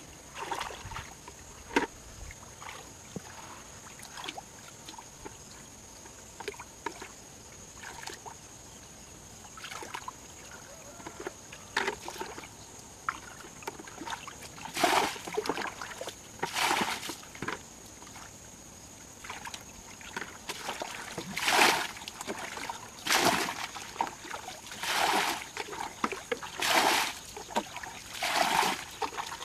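Muddy stream water being bailed by hand with a plastic bucket: small sloshes and scoops at first, then a run of splashes roughly every two seconds as bucketfuls are thrown out.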